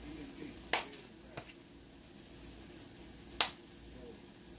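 Sharp taps of kitchen items, three of them: one under a second in, a fainter one just after, and a loud one about three and a half seconds in.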